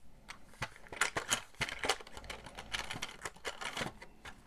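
Small hard plastic pieces being handled, a quick irregular run of light clicks and rustles.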